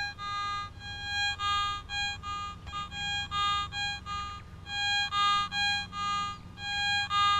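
Garrett ATX pulse-induction metal detector giving its target signal: a buzzy fixed-pitch tone that swells and fades about twice a second as the coil is swept back and forth over a buried target.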